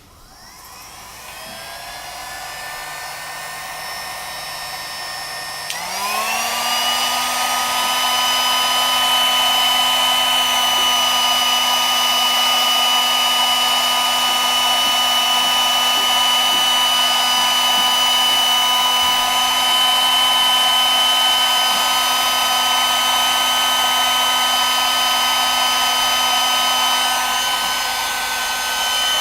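MKHC-18 heat gun's fan motor starting up and blowing air, its whine rising at first, then stepping up to a higher pitch about six seconds in and running steadily.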